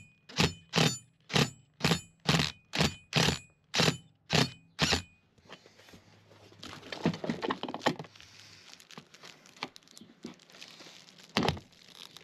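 Cordless Makita impact driver run slowly on an M8 bolt, hammering it into a drilled hole in the van's steel body member so the bolt cuts its own thread: a steady run of separate sharp impacts, about two a second, for about five seconds, then it stops. Softer handling noise follows, and a couple more impacts come near the end.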